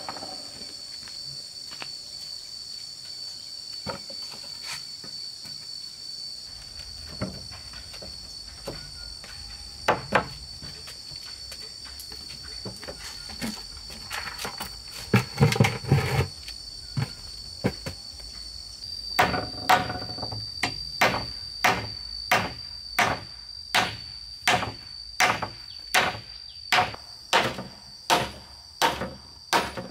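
Hammer driving nails into a wooden wall plank: scattered knocks of boards at first, then, about two-thirds of the way in, a steady run of hammer blows a little under two a second. A constant high insect drone goes on underneath throughout.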